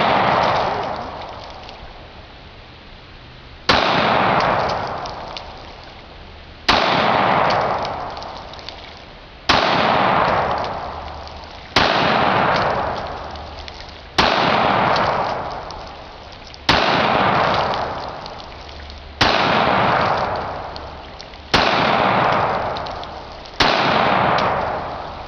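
Taurus PT111 Pro 9mm pistol firing nine single shots, one about every two and a half seconds, each followed by a long echo that dies away over a second or two.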